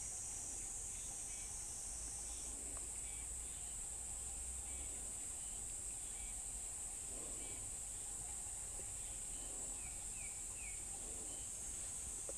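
Steady, high-pitched drone of a summer insect chorus, with a few faint short chirps about ten seconds in.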